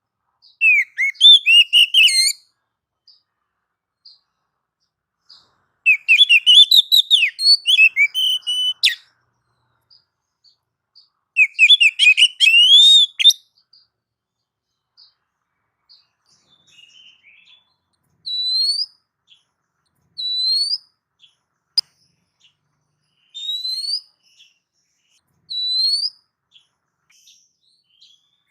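Oriental magpie-robin (kacer) singing: three loud phrases of rapid, varied whistled notes, then, after a pause, four single short rising whistles a couple of seconds apart.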